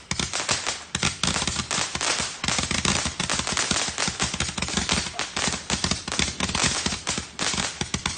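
Fox Fireworks Beast 666-shot barrage firing a rapid, unbroken string of shots, many a second, like a machine gun, as its tubes launch stars that burst in red and green.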